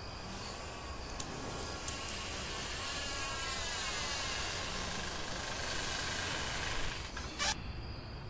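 A door slowly swinging open: a drawn-out rushing creak begins with a click about a second in and stops just before a sharper knock near the end.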